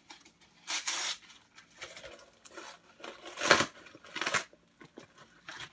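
Mail packaging and card sleeves being handled off camera: several short rustles, the loudest about three and a half seconds in.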